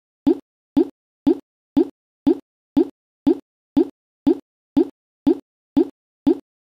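A short, identical rising-pitch pop about twice a second, with dead silence between the pops: a stuck, looping audio fragment, the same brief snippet repeating over and over.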